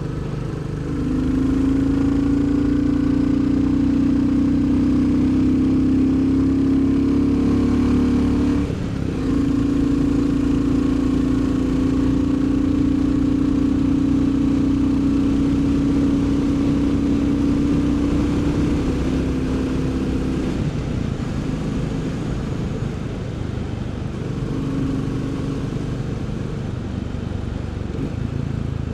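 Royal Enfield Bullet 350's single-cylinder engine and exhaust running steadily under load while riding. The engine note dips briefly about nine seconds in, then eases off and runs quieter from about twenty seconds.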